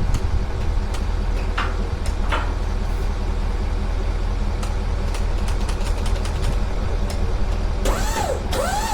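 Truck engine idling steadily, with a few light clicks. Near the end come two short squeaks that rise and fall in pitch.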